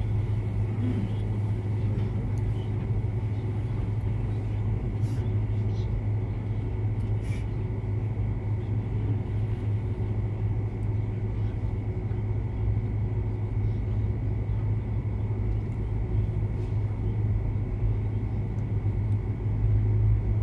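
Steady low hum and rumble with a faint constant high tone, and a few soft clicks.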